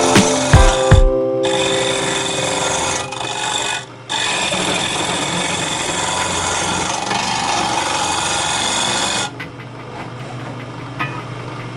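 Woodturning lathe spinning an osmanthus-wood bowl while a hand tool is held against it, giving a steady scraping hiss of tool on hard wood. The sound stops briefly about four seconds in, then drops off to a quieter run near the end.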